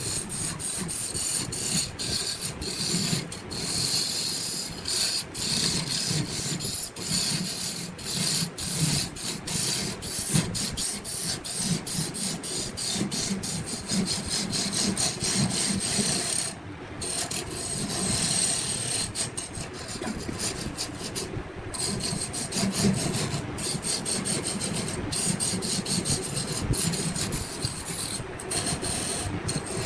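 Wood being cut on a spinning lathe: a continuous rasping scrape of the turning tool against the wood, broken by a few brief gaps.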